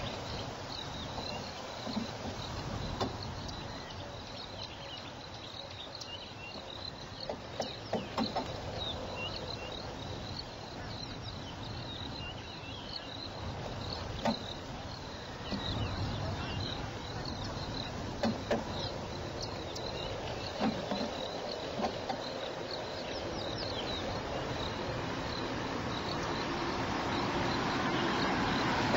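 Insects chirping in a high, repeating pattern over a steady hiss, with scattered faint clicks and knocks; the hiss grows louder near the end.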